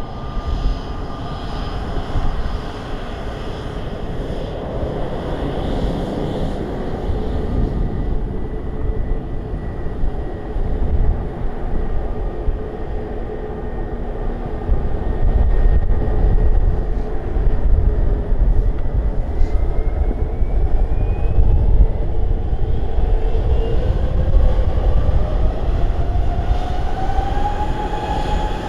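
Jet aircraft engines whining over a heavy low rumble. The whine sags slightly and then climbs in pitch over the last few seconds, with wind buffeting the microphone.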